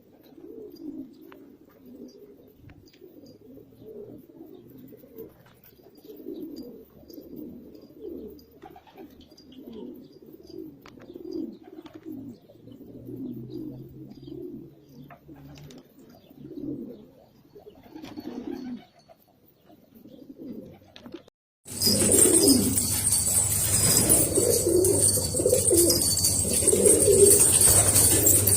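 Domestic pigeons cooing, many low calls overlapping. About 22 s in, the sound cuts to a louder, hissier recording in which the cooing continues.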